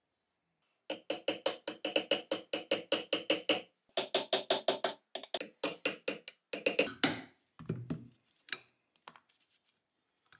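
Small hammer tapping a pin punch in quick runs of about six strikes a second, broken by short pauses, driving a rust-seized pin out of a Colt Vest Pocket pistol frame. Near the end the strikes thin out to a few lighter taps as the pin comes free.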